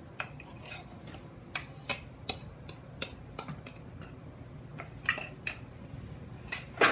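A kitchen utensil clinking and scraping against a mixing bowl while egg whites are worked out into the cake batter: a dozen or so irregular sharp clicks, with the loudest clatter near the end.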